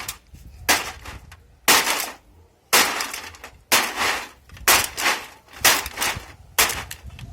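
Repeated heavy smashing blows, about one a second, each a sharp crash with a short crackling tail, like something brittle being struck and broken.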